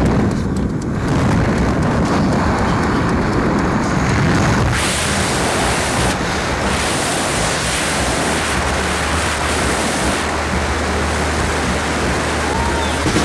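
Wind rushing past the open door of a skydiving plane in flight, blowing across the microphone, over the low steady drone of the aircraft's engine. The rush turns hissier about five seconds in.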